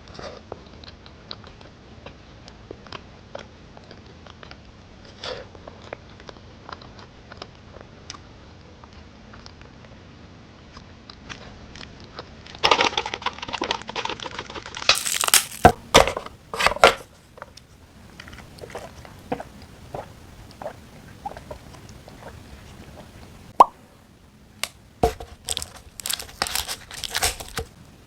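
Close-up eating and packaging sounds: faint small clicks and mouth sounds, with two louder bursts of crinkling and tearing, about halfway through and again near the end, as plastic food packaging is handled and opened.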